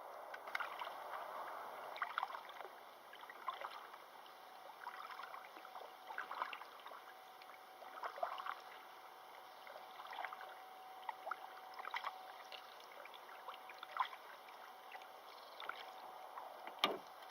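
Kayak paddling: water splashing and dripping as the paddle dips in, about every two seconds, with a sharp knock near the end.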